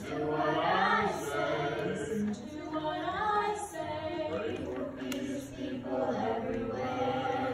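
A group of children singing together in unison, holding sustained notes of a Christmas song.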